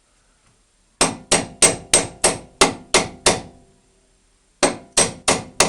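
Hammer blows on steel, driving a front suspension control arm of a VAZ-2111 into place: a run of eight quick strikes about three a second, a pause, then four more. Each strike has a short metallic ring.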